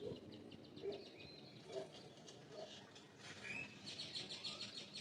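Faint background birdsong: small birds chirping in quick repeated notes, busier in the second half.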